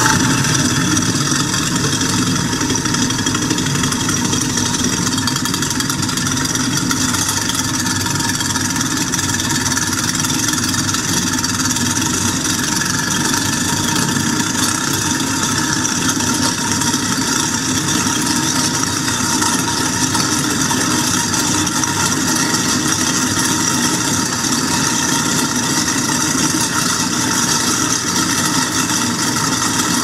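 Kitchen sink garbage disposal running steadily while grinding up a rotten lime, with tap water pouring into the drain.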